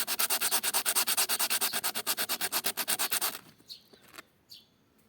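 Bicycle disc brake pad rubbed rapidly back and forth on coarse P80 sandpaper, an even run of quick scraping strokes that stops about three and a half seconds in, followed by a few faint scrapes. The sanding takes off the oil-soaked surface layer that makes the brake squeal, down to clean brown pad material.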